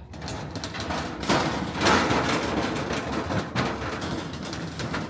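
Thin sheet-metal plenum panels being handled and fitted together, scraping and rattling, loudest about a second and a half in.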